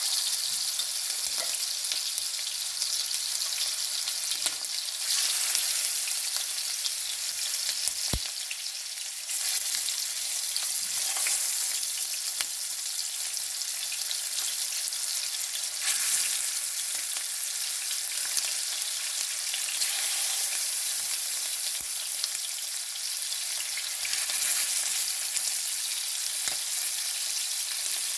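Seasoned chicken pieces sizzling and crackling as they brown in hot oil, a steady high hiss with small pops and spits throughout.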